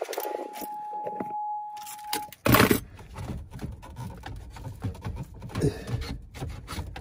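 Hands working a factory radio loose from dash plastic: low handling noises with small plastic taps and clicks. For about the first two seconds a steady high beep holds, then a sudden loud knock.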